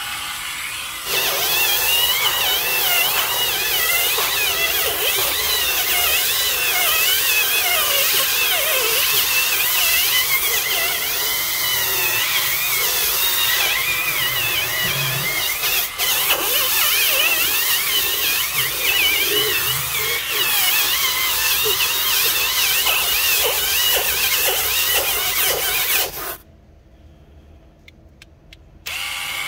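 Handheld cordless power scrubber spinning a round brush over foamed cloth car-seat upholstery: a steady motor whine with a wavering high squeal. It stops about three seconds before the end, then starts again just at the end.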